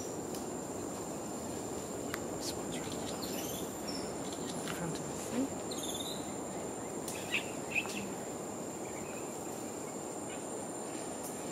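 Tropical forest ambience: a steady high-pitched insect drone over a constant low rushing background, with a few short bird chirps and faint clicks scattered through.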